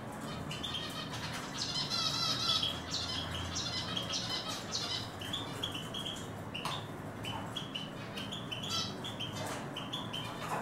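Male Eurasian siskin singing: a twittering run of quick, high notes, with a fast warbled trill about two seconds in.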